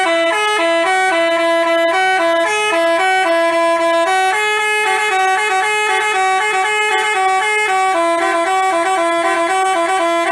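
Basuri-type telolet bus horn playing a tune: a quick run of short stepped notes, two pitches sounding together throughout, loud and unbroken.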